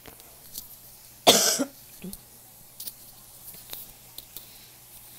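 A single short cough about a second in, with a few faint clicks around it.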